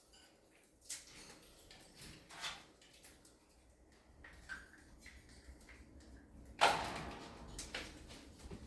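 A few scattered clicks and knocks from handling a bird cage and foraging toys while they are filled with seed, the sharpest about two-thirds of the way through.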